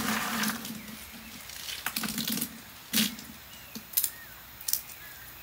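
Hand digging through dried cacao beans in a bucket, the beans rattling and clattering in several bursts, then a few sharp clicks as a bean is pinched and its shell cracked between the fingers. Faint birdsong chirps behind.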